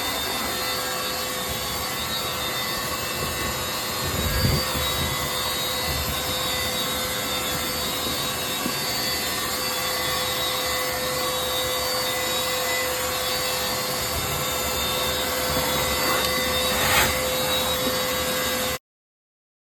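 A dryer vent cleaning vacuum running steadily: a constant rushing noise with a steady hum. There is a thump about four seconds in and a short knock near the end, and the sound cuts off abruptly.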